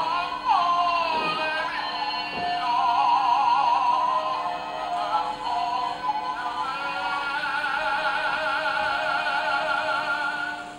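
Electronic singing dog toy playing a recorded song through its small speaker: a thin, wavering sung melody with little bass, which cuts off at the very end.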